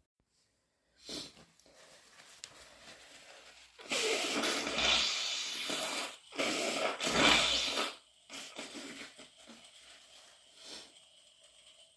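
A person with a congested nose from a cold blowing her nose hard, two long wet blows, the second following right after the first. Fainter scattered sounds follow.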